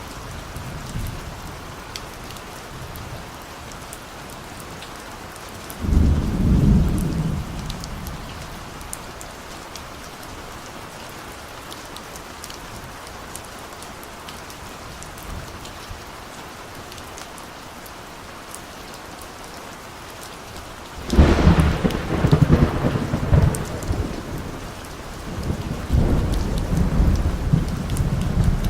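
Steady rain with drops pattering, and distant thunder rumbling twice: a short roll about six seconds in and a longer, louder one starting near the three-quarter mark that rumbles on to the end.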